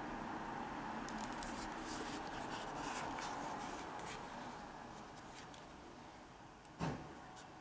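Handling noise from a Nikon D600 camera body being turned over in the hands: small clicks and light scrapes of fingers on the body, over a steady background noise that fades partway through. One sharp knock near the end is the loudest sound.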